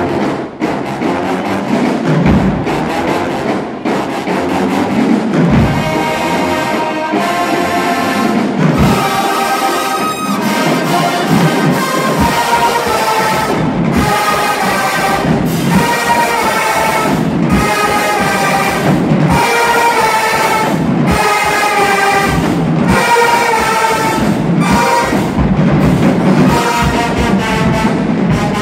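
Marching band of brass and drums playing: drum hits for the first few seconds, then the full horn section of trumpets and trombones comes in about six seconds in, playing loud, repeated brass phrases over the drums.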